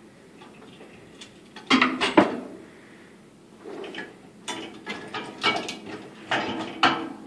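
Metal knocks and clicks from a cable home-gym machine. A couple of sharp knocks come about two seconds in as the pull handles go back against the frame. Near the end comes a run of clicks and rattles as the lever under the seat is worked.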